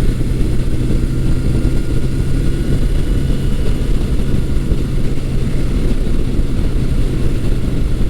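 1982 Suzuki GS750E's air-cooled inline-four engine running at a steady pitch while the motorcycle is ridden, running fairly smoothly.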